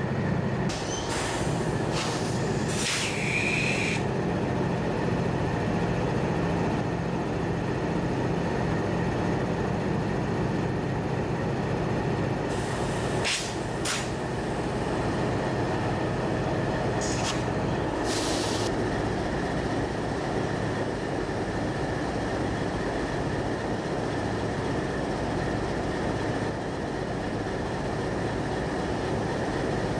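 Diesel-electric freight locomotives idling at a standstill: a steady low engine rumble with a faint high whine over it, broken by a few short hisses about a second in, around thirteen seconds and around eighteen seconds.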